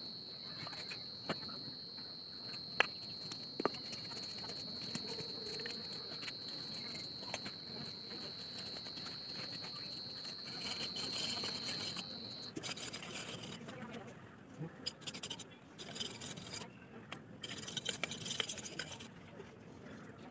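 Knife shaving and splitting thin bamboo sticks: a few sharp cracks early on, then quick bursts of scraping strokes through the second half. A steady high-pitched insect drone, like a cricket or cicada, runs under it and cuts off suddenly about halfway through.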